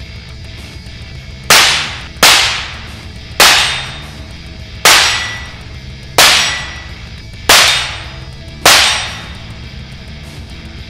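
Seven shots from a Taurus M981 .22 Magnum revolver with a 12-inch barrel, fired at a steady pace about a second apart, each a sharp crack with a short decaying tail.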